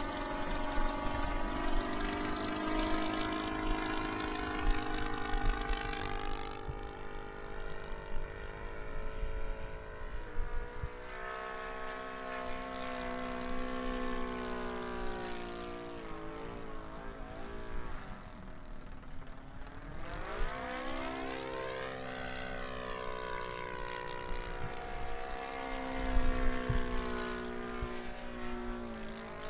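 The ASP 130 engine of a radio-controlled Lazy Ace biplane running in flight. Its pitch slides down and up again several times as the model loops and passes, dropping lowest and faintest past the middle before climbing steeply. There are occasional low rumbles, the loudest about 26 seconds in.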